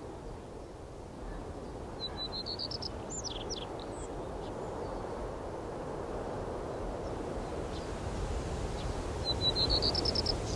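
A small songbird sings the same short phrase twice, about seven seconds apart: a quick run of notes climbing slightly in pitch, ending in a few downward-slurred flourishes. Under it runs a steady low hum of outdoor background noise.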